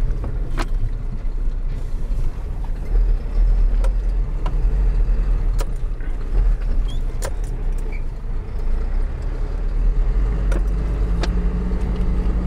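Truck engine running as it drives slowly over rough dirt ground, heard from inside the cab, with a steady low rumble and scattered knocks and rattles from the bumps.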